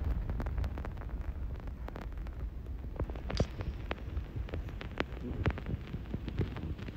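Low, steady room hum with scattered light clicks and taps, the sound of a phone and a paper sachet being handled close to the microphone.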